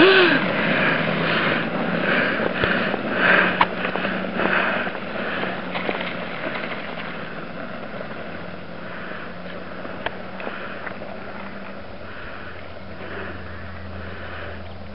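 Heavy, rhythmic breathing of a person running, about one breath a second, fading over the first half, over a steady low hum.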